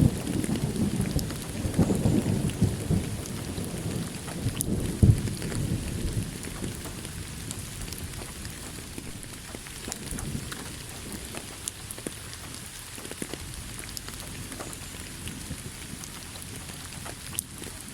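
Thunderstorm: steady rain falling, with a roll of thunder rumbling loudly at first and dying away over the first several seconds, and a sharper thunder crack about five seconds in. After that, only the steady hiss of rain with scattered drops.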